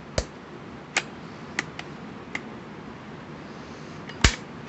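Sharp metallic clicks from a Citadel PAT 12-gauge pump shotgun's action being worked slowly by hand, its parts catching in the receiver as the bolt carrier contacts the shell interrupter: about six separate clicks, the loudest near the end.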